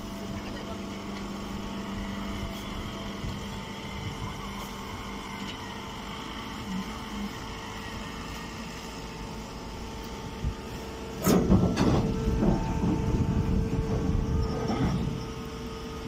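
Machinery running with a steady hum. About eleven seconds in, a louder, rough, uneven noise rises and lasts about four seconds.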